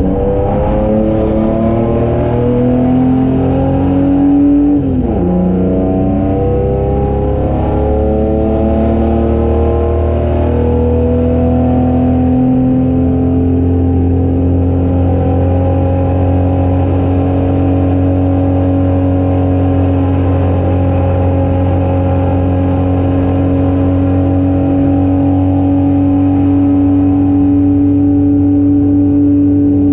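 Holden HQ race car's straight-six engine at full throttle, heard from inside the cabin. The revs climb, dip sharply at a gear change about five seconds in, climb again, and from about twelve seconds on hold a nearly steady, slowly rising note.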